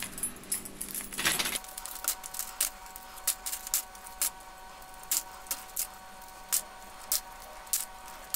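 Steel bicycle spokes clicking and clinking against the hub flange and each other as they are pulled out of a rear hub one by one: short sharp metallic clicks, irregular, about one or two a second.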